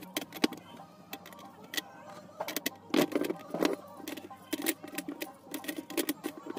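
Hard plastic clicks and taps of modular switch and socket plates being handled and set into cutouts in a switchboard sheet. The clicks come irregularly, with a busier cluster about three seconds in.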